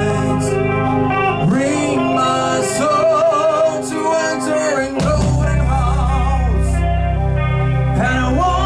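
Live band music: a singer holds notes with vibrato over guitar. The bass drops away for a few seconds and comes back in heavily about five seconds in.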